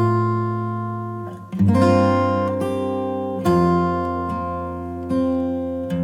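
Background music: acoustic guitar playing slow strummed chords, a new chord struck every second and a half or so and left to ring out.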